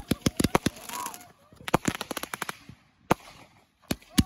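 Consumer fireworks going off: rapid volleys of sharp bangs and cracks fired in quick succession, a dense run about halfway through, then a few single bangs near the end.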